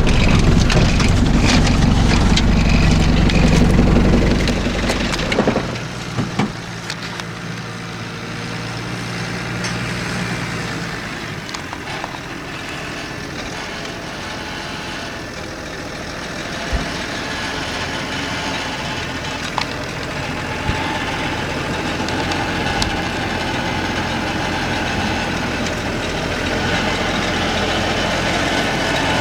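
Vehicle engine running: loud for the first few seconds, then dropping to a quieter steady hum, with a few clicks about six seconds in.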